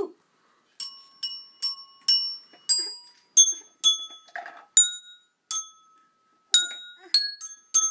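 Handheld metal tube chimes struck one at a time, about fourteen ringing notes of different pitches picking out a tune in an uneven, halting rhythm, with a short pause a little past halfway. Each note starts sharply and dies away within about half a second.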